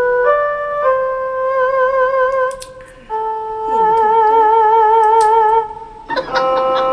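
Music: a slow melody of long held notes with a wavering vibrato, dipping briefly twice before busier music comes in near the end.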